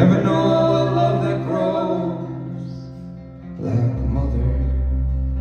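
A rock band playing a song live, with a lead vocal line sung over it. A deep low note comes in about four seconds in.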